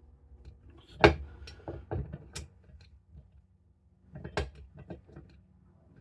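Scattered knocks and clicks of screws and small parts being handled and fitted: a sharp knock about a second in, then lighter clicks, with another knock about four and a half seconds in.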